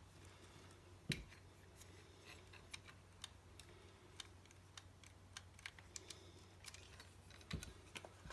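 Scattered light clicks and taps from handling the Nikon FM2 camera body during repair, with one louder click about a second in and a few more near the end, over a faint steady low hum.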